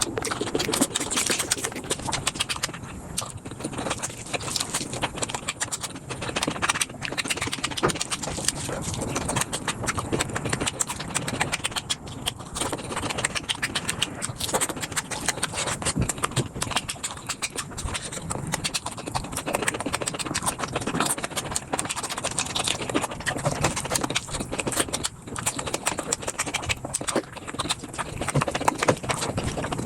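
A person chewing and crunching bamboo shoots, played back at five times speed, so the bites run together into a continuous stream of fast clicks and crunches.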